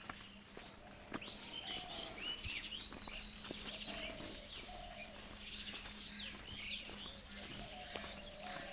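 Several birds chirping and calling: quick high chirps throughout, mixed with some lower, longer calls, over a faint steady low hum.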